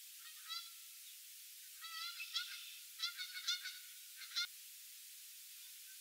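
Canada geese honking: a scattered series of short, nasal honks, several in quick succession in the middle and a last sharp one near the end. The sound is thin, with no low end.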